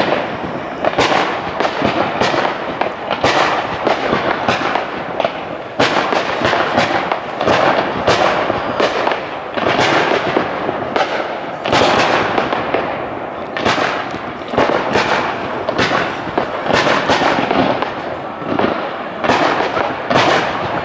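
Aerial fireworks shells bursting in quick succession: a dense, continuous run of bangs, several a second, with crackling between them.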